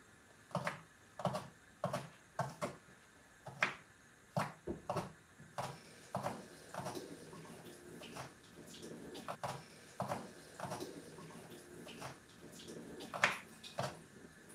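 A kitchen knife chopping on a plastic chopping board, with short knocks about one to two a second, steady at first and then sparser and less even.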